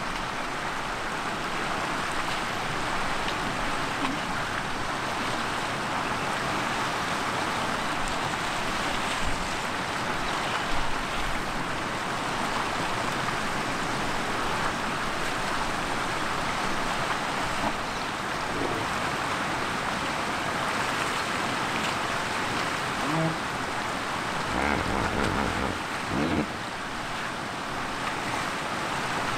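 Steady rushing of flowing river water. Near the end come a few short, louder low-pitched sounds.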